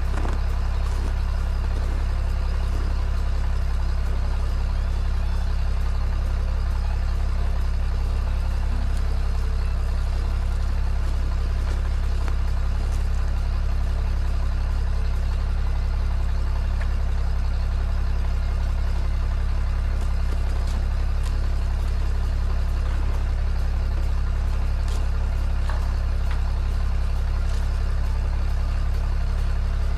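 Engine of an old machine idling steadily while it warms up from cold.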